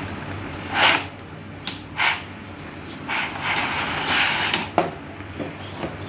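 Handling noises during a keyboard unboxing: short rustles and scrapes, a longer rustle from about three seconds to nearly five seconds, and a sharp click just after, over a steady low hum.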